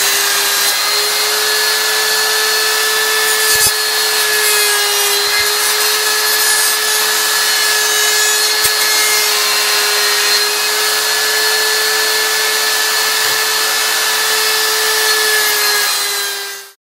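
Electric router clamped upside down, running at a steady high speed with a constant whine while a bearing-guided bit cuts the edge of a hand-fed bog oak handle scale, with rasping cutting noise over it. The sound fades out at the end.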